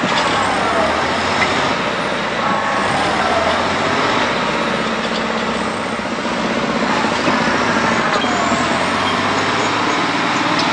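Diesel engines of a crawler tractor and a wheeled tractor running hard under load in deep mud, their pitch rising and falling several times as they rev.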